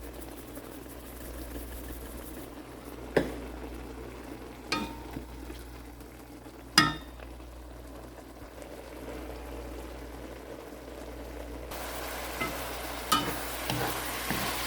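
Ground chicken sizzling in a cooking pot as it finishes cooking, with a utensil knocking sharply against the pot three times while it is stirred. The sizzle grows louder and brighter near the end.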